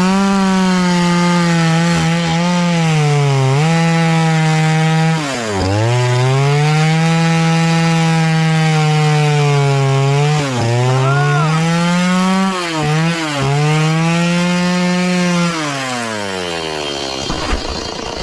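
Power wheel saw cutting wood: a steady high-pitched machine hum whose pitch sags several times as the blade takes load in the cut and then recovers. About sixteen seconds in the pitch drops away as the saw winds down to a lower hum.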